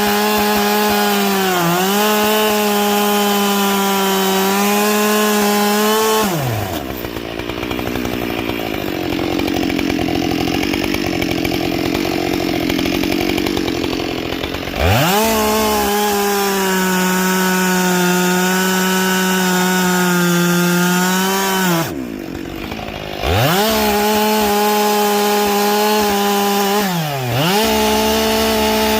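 Husqvarna 572 XP two-stroke chainsaw with a carbide chain at full throttle cutting wood, its pitch sagging briefly under load. About six seconds in it drops to idle for roughly eight seconds, then revs back up for further cuts, with one short drop to idle about two-thirds of the way in.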